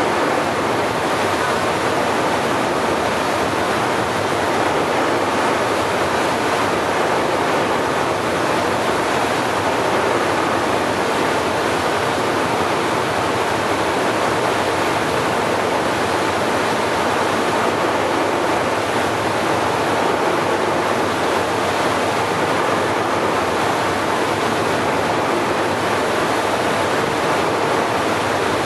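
Steady, even rushing noise that does not change as the jetfoil moves away, so it comes from around the microphone rather than from the boat.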